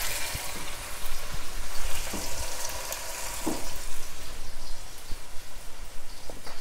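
Beef chapli kebab freshly added to hot oil in a stainless steel pan, deep-frying: steady sizzling and bubbling with scattered pops.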